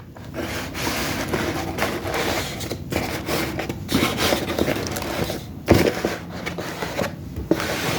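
Laptop packaging being handled: continuous rustling and scraping, with a sharp knock a little past the middle.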